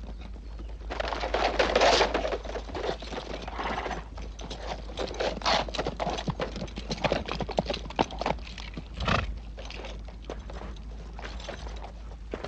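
Horses galloping over rocky ground: a fast, irregular clatter of hoofbeats, loudest about one to two seconds in, thinning out near the end as the horses come to a stop.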